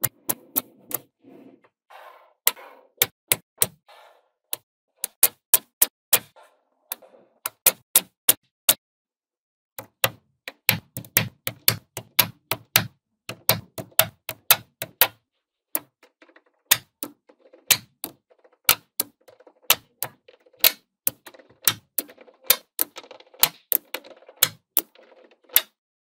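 Small magnetic balls clicking sharply as they snap onto one another, in quick irregular runs of clicks with a short pause about nine seconds in.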